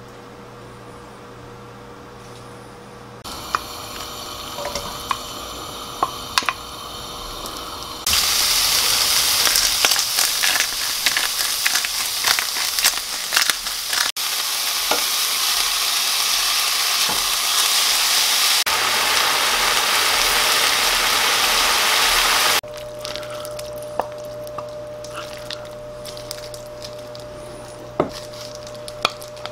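Ground pork frying in a pan, sizzling with scattered clicks and scrapes of stirring. The sizzle comes in a few seconds in, grows much louder about 8 s in, and cuts off suddenly about 23 s in.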